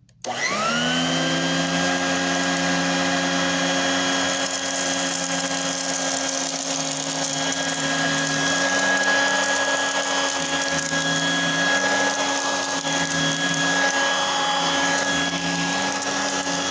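Royal Dirt Devil Hand Vac model 103, a 2-amp hand vacuum, switched on: its motor spins up with a rising whine within the first second. It then runs steadily while sucking crumbs off carpet, its pitch wavering slightly.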